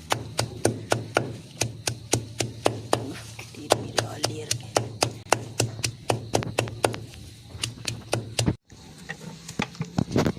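Rapid sharp knocks at about four to five a second over a low steady hum, with a brief drop-out about eight and a half seconds in.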